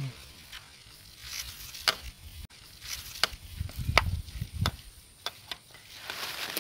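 A small hooked fish being swung out of the water on a fishing pole: scattered sharp clicks and rustles, with a cluster of low thuds and the loudest click about four seconds in.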